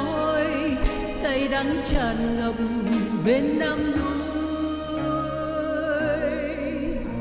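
A woman singing into a handheld microphone over recorded music, with a beat about once a second. Her voice wavers on held notes.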